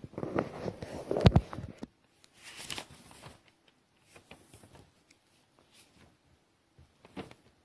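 Irregular rustling and light clicking close to the microphone, with one loud thump a little over a second in.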